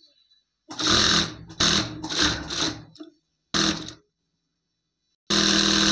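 Electric sewing machine stitching fabric in several short runs, each a second or less, stopping and starting as the seam is guided through.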